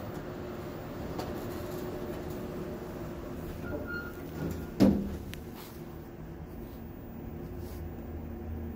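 Elevator doors sliding shut: a short high tone sounds about four seconds in, and the doors meet with a single loud thump just before five seconds. After that the sound is duller, with a low hum from the closed car.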